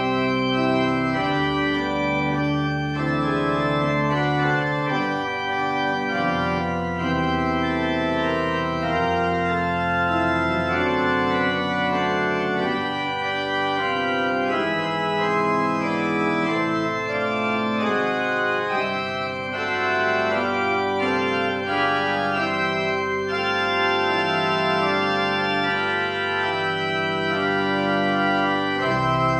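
Organ playing held chords that change every second or two, a postlude at the close of the service.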